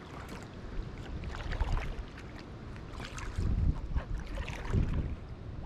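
Double-bladed kayak paddle dipping and splashing as a packraft is paddled, with water dripping off the blades. Gusts of wind rumble on the microphone, swelling a few times.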